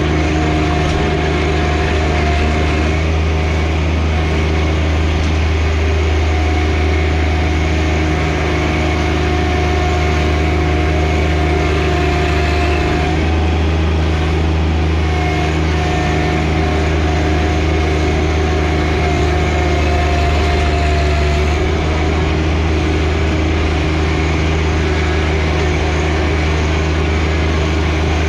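John Deere 1025R compact tractor's three-cylinder diesel engine running steadily, with a thin whine over its low hum. The note shifts slightly twice, about halfway through and again about three quarters of the way.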